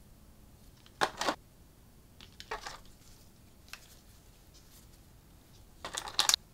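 Toy packaging being handled and opened: short rustles and clicks, a quick double click about a second in, a smaller rustle, and a longer rustling cluster near the end.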